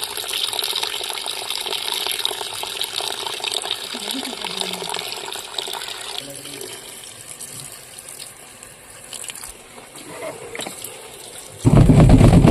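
Water running into a washing machine, a steady hiss that eases off about halfway through. Near the end there is a loud low rumble lasting about a second.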